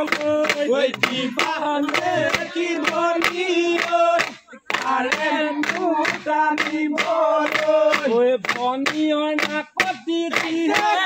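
A group of men and women singing a Bihu song together over a sharp, even beat about three times a second. The singing and beat break off briefly about four and a half seconds in.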